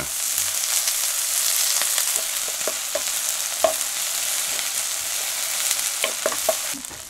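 Food sizzling in hot oil in a frying pan, with scattered light clicks of stirring. The sizzle drops away near the end.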